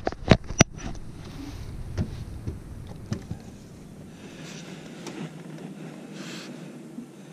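A few sharp knocks and rubs as a hand handles the action camera in the first second, then a steady low rumbling background noise.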